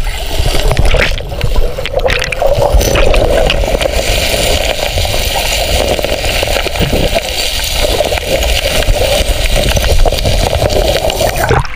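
Loud, continuous rushing and gurgling of river water close to the microphone, full of small splashes; it cuts off suddenly near the end.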